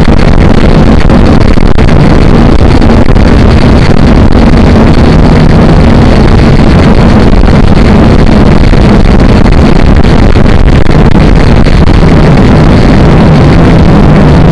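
A small quadcopter drone's electric motors and propellers buzzing loud and steady in flight, as picked up by the drone's own onboard camera microphone.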